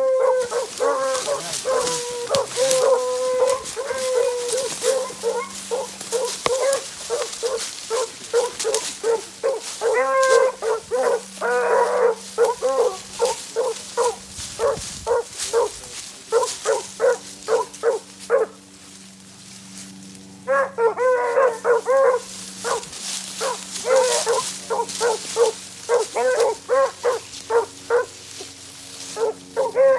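Beagle hounds giving tongue while running a rabbit's track: quick runs of short, pitched barks, several a second. They fall quiet for several seconds just past the middle, then open up again.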